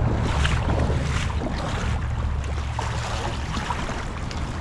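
Steady low wind rumble on the microphone over the wash of river water.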